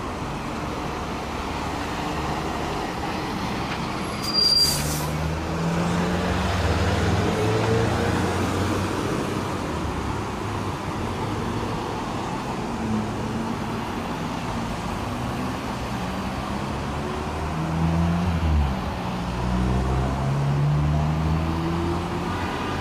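Street traffic: car and pickup engines passing close by, several rising in pitch as they accelerate away. A short sharp hiss comes about four and a half seconds in.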